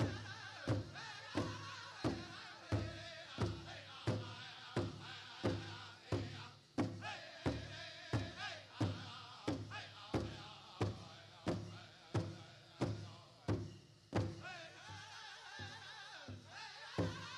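Powwow drum group singing a chicken dance song: voices singing together over a large bass drum struck in a steady beat, about one and a half beats a second. The drum strikes go softer for a few seconds near the end.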